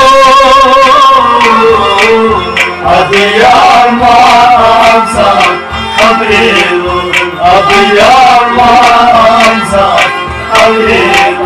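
Kashmiri Sufi kalam played live: harmonium and plucked rabab carry a wavering melody, a hand drum beats a quick steady rhythm, and singers' voices join in.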